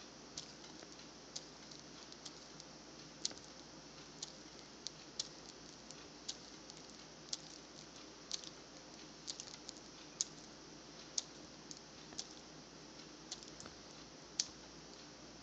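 Iguana chewing a mouthful of bean burrito: quiet, irregular sharp clicks and smacks of its jaws, roughly one or two a second.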